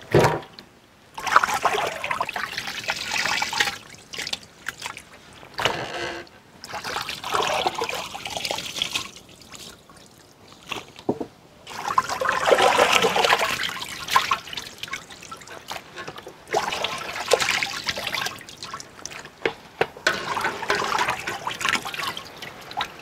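Water splashing and sloshing in a large aluminium basin as cut chicken pieces are washed and squeezed by hand, in irregular bursts with short lulls between.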